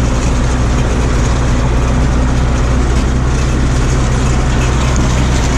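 Farm tractor engine running steadily under load as it pulls a hay mower cutting alfalfa, heard close from the driver's seat.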